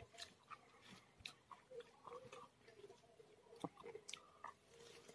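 Faint close-up mouth sounds of a man chewing a mouthful of rice and smoked pork, with soft wet smacks and a few sharp clicks, the loudest a little past halfway.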